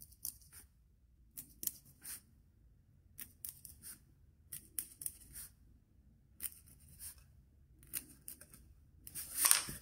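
Sharpened pencil point scoring lines into a Selitac foam underlay sheet: a run of short, faint scratching strokes at uneven intervals, with a longer, louder scrape near the end.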